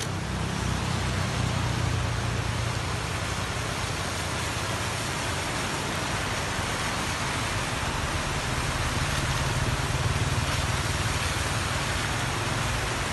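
Steady rain hiss with the low hum of a vehicle engine running under it.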